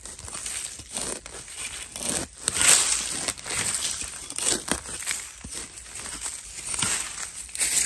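A long-handled metal digging spade chopping repeatedly into dry soil and bamboo leaf litter at uneven intervals, each strike a crunchy thud with crackling leaves, as a wild bamboo shoot is dug out.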